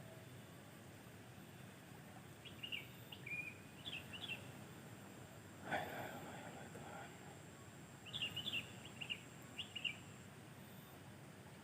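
Small bird chirping in short quick groups over steady outdoor background noise, with a brief rustling or splashing noise about six seconds in and a faint steady high tone that stops near the end.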